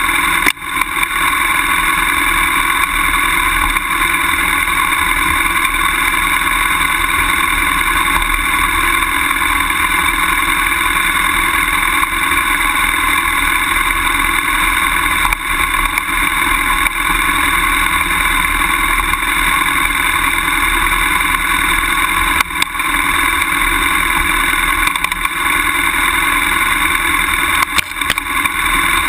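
BMW F800GS motorcycle's parallel-twin engine running at steady revs while the bike rides over a grass trail.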